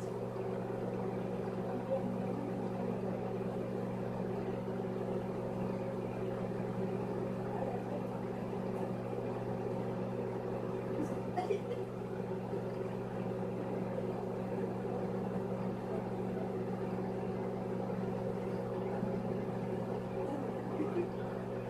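Microwave oven running, a steady even hum with a few faint clicks, heating an egg in water.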